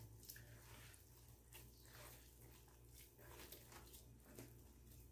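Faint, irregular squishing and patting of hands working a sticky flour-and-water bread dough in a plastic bowl.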